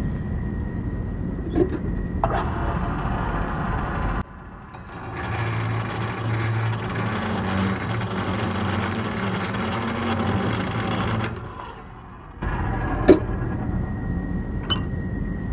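A power saw cutting a length of 5/8-inch rebar to size: a steady motor hum under a grinding cutting noise that thickens through the middle of the cut. A single sharp metal clank comes near the end.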